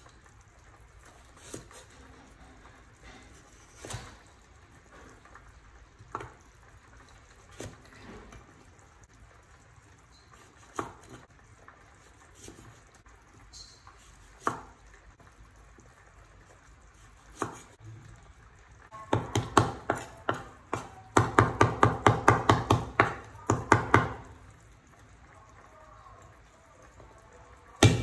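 Cleaver knocking on a wooden chopping board as vegetables are cut: single cuts every second or two, then about two-thirds in, several seconds of fast chopping at three or four strokes a second.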